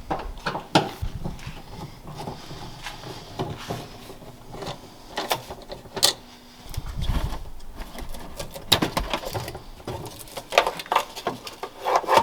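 Scattered clicks, knocks and rustling of hand work on the car, with a faint steady hum through the first half that stops about halfway through.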